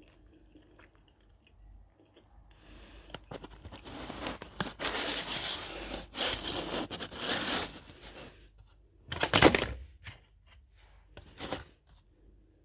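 Food packaging being handled and torn open: a few seconds of dense crinkling and tearing, then a short, louder rip about two thirds of the way through and a smaller one near the end.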